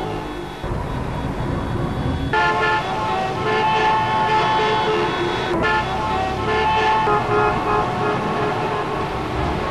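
Road traffic with vehicle horns sounding: held tones that overlap and change pitch every half second or so, over a steady rumble.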